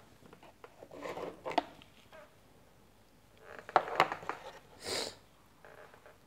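Handling noise from hands working close to the phone: scattered rustles and clicks in a few short bursts, with a brief hiss about five seconds in.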